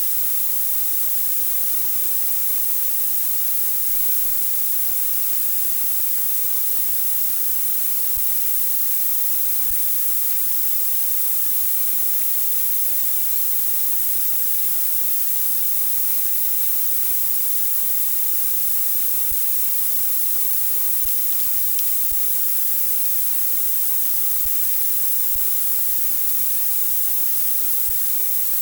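A steady, even hiss, strongest in the high range, with a few faint clicks.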